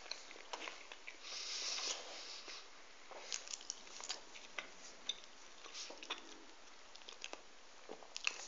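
Faint mouth and breath sounds of a person chewing a mouthful of donut: small scattered clicks and a breathy hiss through the nose.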